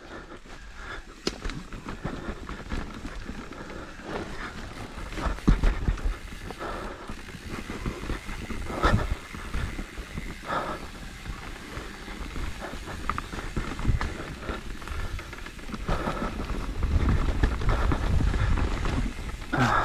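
Mountain bike descending a rooty dirt singletrack: tyres rolling over roots and rocks, with frequent clicks and knocks from the bike rattling over the bumps. Wind rumbles on the microphone, heavier near the end.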